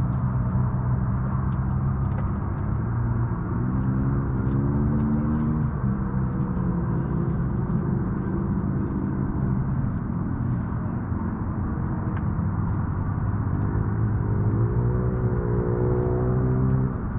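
An engine running steadily with a low hum, its pitch rising and falling twice, with faint scattered clicks.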